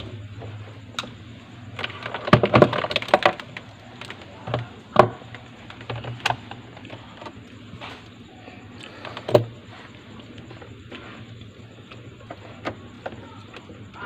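Scattered clicks and light knocks of small parts and tools being handled during refrigerator defrost-circuit wiring work, with a busier cluster about two to three seconds in. A steady low hum runs underneath.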